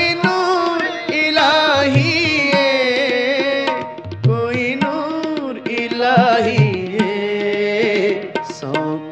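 Sikh kirtan music: tabla strokes with deep bass hits under steady held harmonium-like notes and a wavering melody line.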